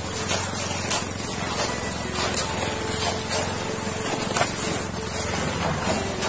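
A small engine running steadily, with scattered knocks and scrapes of hand work with buckets and tools.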